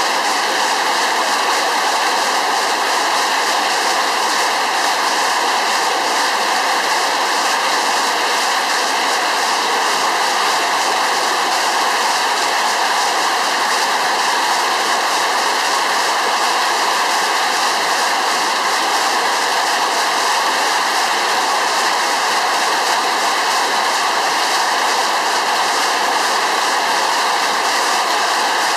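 Severe hailstorm: hailstones and rain pelting down on the ground and yard in a steady, dense rush of noise that does not let up.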